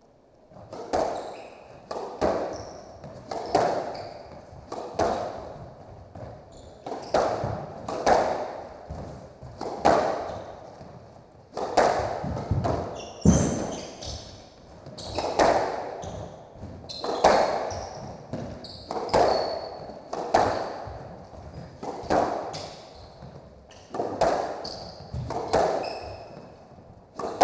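Squash rally: the ball is struck by the rackets and smacks off the court walls about once a second, starting about a second in, each hit echoing in the enclosed court. Short high squeaks of shoes on the hardwood floor come between some of the hits.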